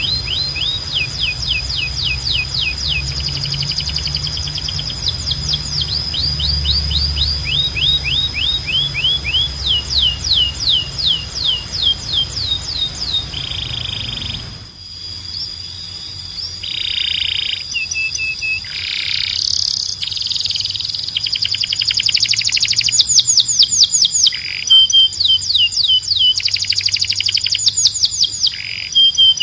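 Canaries singing: long runs of rapid, repeated sweeping trill notes. About halfway through, the recording changes to another canary's song of buzzy rolls and fast trills, louder toward the end.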